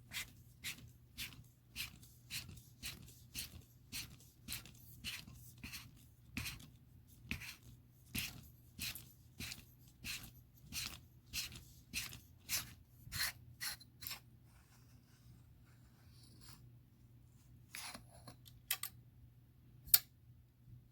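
Quiet rasping twists, about two a second, of a threaded part being turned by hand on the barrel shroud of an AEA SF Compact PCP air rifle. They stop about two-thirds of the way through, and a few sharp clicks follow, the loudest near the end.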